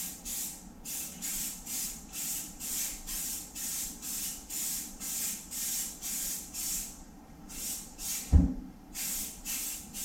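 Aerosol spray-paint can hissing in short, evenly repeated bursts, about three a second, with a brief pause about seven seconds in. A single dull thump comes just after the pause.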